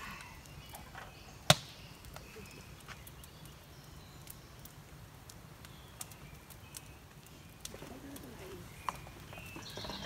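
Faint bird chirps over scattered small ticks and crackles, with one sharp snap about a second and a half in.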